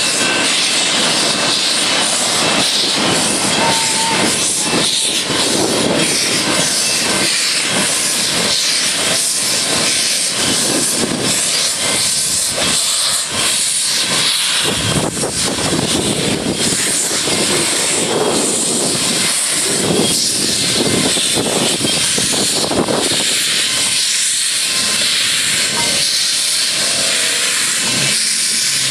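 Steam locomotive passing at close range, with a steady loud hiss of steam.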